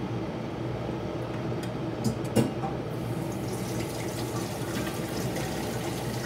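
Glass electric kettle at a rolling boil, water bubbling and rumbling steadily as a vinegar-and-water solution boils to lift off limescale. A couple of sharp clicks come about two seconds in.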